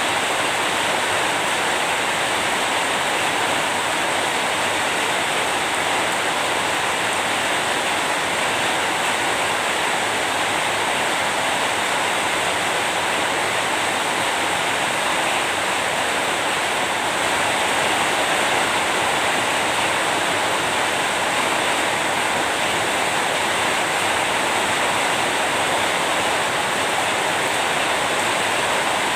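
Steady rain falling, a dense even hiss of water with no distinct drops or thunder standing out.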